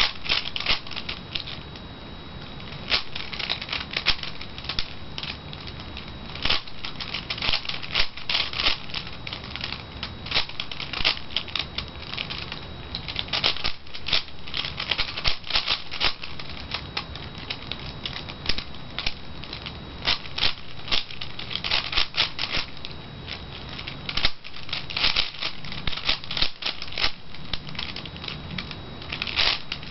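V-Cube 5 (5x5x5 puzzle cube) being turned fast by hand: its plastic layers click and clack in rapid runs of turns, broken by short pauses between runs.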